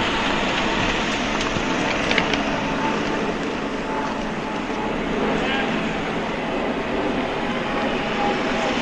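Steady outdoor street noise with faint distant voices in it.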